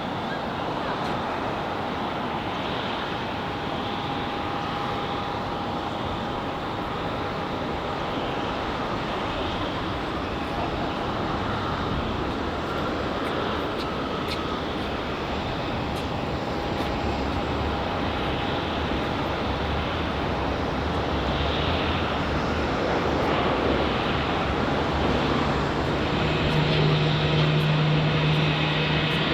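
Airbus A321 jet engines on a landing approach: a steady rushing with a faint thin whine, growing slowly louder, with a low hum coming in near the end.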